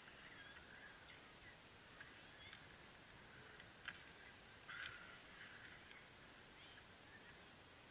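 Near silence: a faint steady outdoor hiss with a few soft ticks, about one, four and five seconds in.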